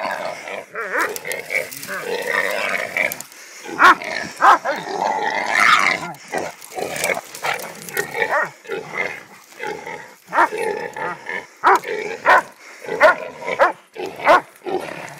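A hog squealing while dogs that have caught it bark. The cries come in long wavering stretches, cut through by many short, sharp barks.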